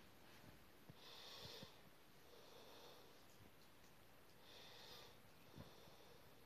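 Very quiet: faint breathing, a slow breath about every one and a half to two seconds, with a few soft taps from the bedding.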